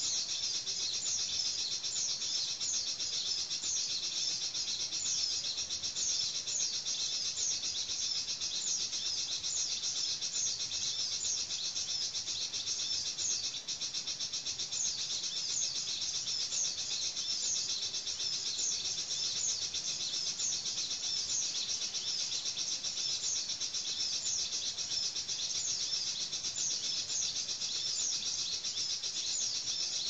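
Steady high-pitched chirping: a short falling note repeated evenly about twice a second, without pause.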